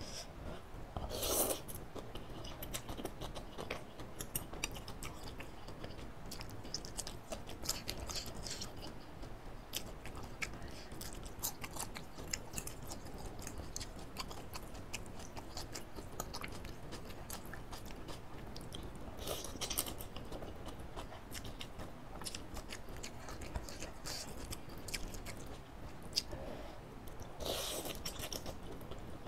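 Close-miked eating of instant noodles in soup with bean sprouts: wet chewing with many small mouth clicks, broken four times by a louder slurp of noodles.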